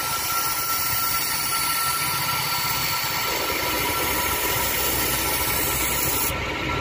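Bench grinder wheel grinding the steel blade of a thread-cutting cutter: a steady hiss of metal on the abrasive wheel over a steady motor whine, as the blade's edge is sharpened. The grinding hiss stops about six seconds in while the wheel keeps spinning.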